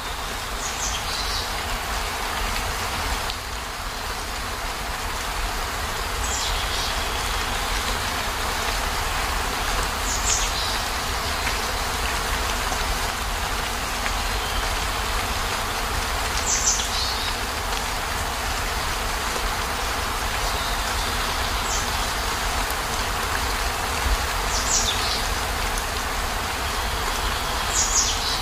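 Steady rain with a low rumble underneath. A short, high, falling chirp comes through every few seconds, about seven times in all.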